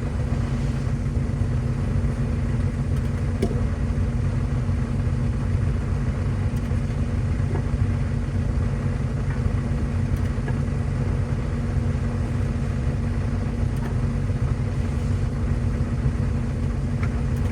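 Engine of a bucket loader running steadily with a deep rumble and a steady hum while it lifts a forklift on a chain.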